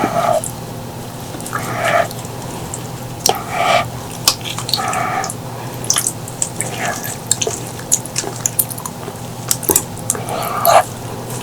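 Close-miked eating sounds of pork leg curry and rice: wet chewing and lip-smacking in short bursts every second or two, with sharp mouth clicks. A steady low hum runs underneath.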